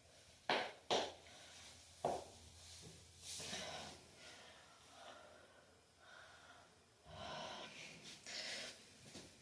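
Three sharp pops of joints cracking within the first two seconds, followed by several breathy exhalations.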